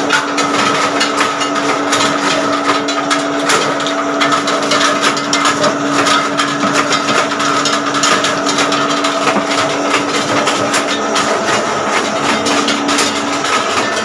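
Dry areca nut peeling machine running: a steady motor hum under a dense, continuous rattle of clicks as the nuts are cracked and dehusked.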